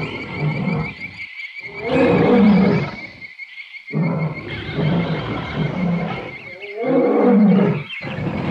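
Big cats roaring and growling in repeated long bouts with short pauses between them, over a steady, rapidly repeating high-pitched chirping.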